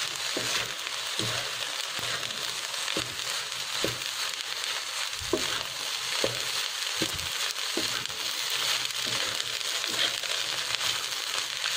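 Fried rice sizzling in a pan over high heat as it is stirred and turned with a wooden spatula: a steady sizzle, with a soft scrape of the spatula through the rice about once a second.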